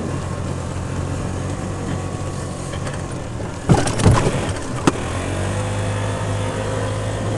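Golf cart driving: a steady drone with a faint whine, broken by a cluster of loud knocks and rattles about four seconds in and one more knock shortly after.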